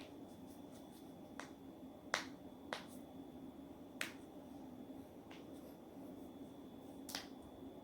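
Body joints being cracked on purpose: about six sharp, single pops at uneven intervals, the loudest a little after two seconds in. A steady low hum runs underneath.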